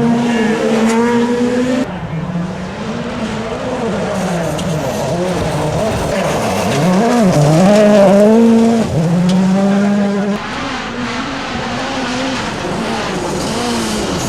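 Rally car engines at full effort, the note sweeping up and down as they rev hard and shift through the gears. The sound jumps abruptly about two seconds in and again near ten seconds, as between separate passes.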